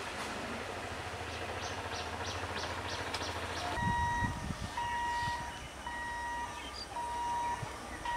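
Medha three-phase EMU electric train running past, a steady rumble with a quick run of rhythmic clicks from its wheels over the rail joints. Then an electronic warning beeper sounds in steady half-second beeps about once a second.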